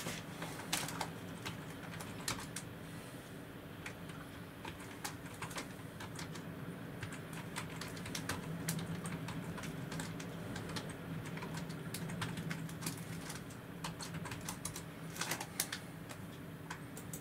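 Raindrops tapping on a window pane in a thunderstorm: sharp, irregular ticks several times a second, over a low steady hum.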